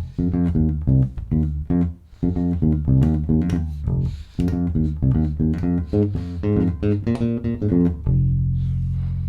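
Dingwall ABZ 4 passive four-string electric bass played direct, bridge pickup soloed with the tone rolled back slightly: a quick run of plucked notes, ending about eight seconds in on one long low note left to ring.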